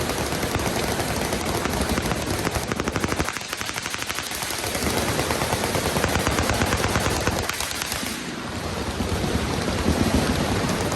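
Several machine guns firing at once in overlapping automatic bursts, a continuous rattle of gunfire. About two seconds in, one gun fires a fast run of evenly spaced shots.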